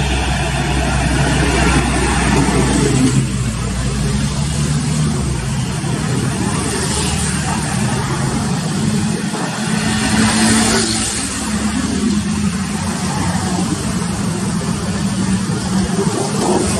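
Busy road traffic: engines of motorcycles, cars and heavy vehicles passing. A steady low engine drone runs over the first few seconds, and vehicles pass close by about seven and about ten seconds in.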